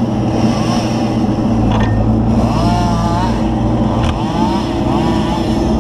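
Kubota KX161-3 mini excavator's diesel engine running steadily, with two sharp knocks about two and four seconds in.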